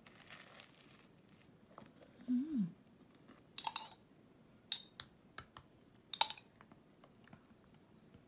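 Metal table knife scooping jam from a glass jar, clicking sharply against the glass about half a dozen times, with faint scraping of the knife on dry toast at the start. A brief low hum comes just over two seconds in.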